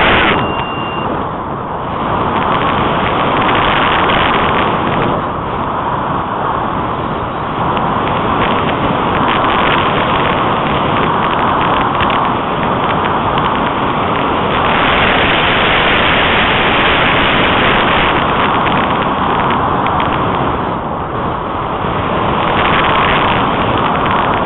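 Rushing wind noise from the airflow over a model glider and its onboard keychain camera's microphone in flight. The hiss swells and eases in waves lasting several seconds.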